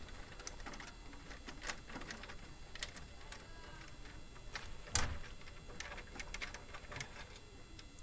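A screwdriver working a front grille screw loose, making scattered faint clicks and ticks with one sharper click about five seconds in.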